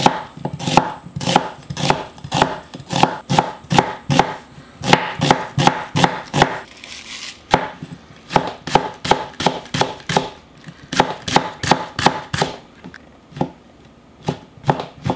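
Chef's knife chopping vegetables (onion, green onion, king oyster mushroom) on a wooden cutting board: a steady run of sharp knife strikes against the board, about two to three a second, with a short pause about halfway.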